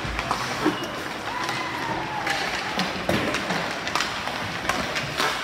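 Ice hockey warm-up: sticks striking pucks and pucks hitting the boards and glass, heard as irregular sharp cracks over the steady background noise of the rink.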